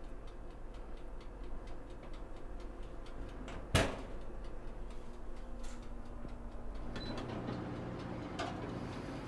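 Toaster oven's dial timer ticking steadily. A single sharp click sounds a little under four seconds in.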